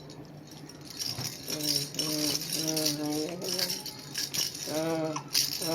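A toy rattle shaken continuously in quick, dense rattles. Short wordless adult voice sounds come through in the middle and near the end.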